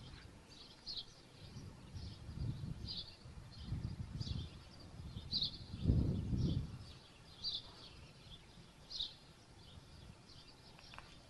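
Small birds chirping, short high calls repeating throughout, over bouts of low rumble, the loudest about six seconds in.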